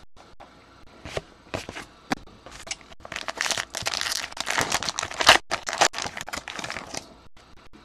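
Trading card pack wrapper crinkling as it is handled and torn open, after a few light clicks and taps of cards being set down.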